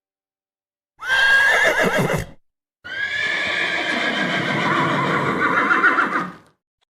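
A horse whinnying twice: a short quavering call about a second in, then a longer, shaking whinny lasting over three seconds.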